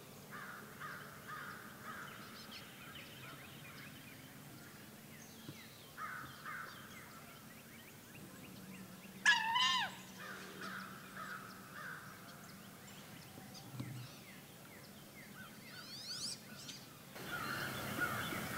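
Wood ducks and other birds calling: series of short calls throughout, with one loud squealing call about nine seconds in.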